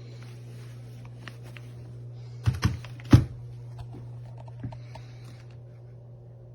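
Keystrokes on an AULA S98 Pro mechanical keyboard: scattered light key clicks, with a few louder clacks a little before the middle and one more near two-thirds of the way, over a steady low hum.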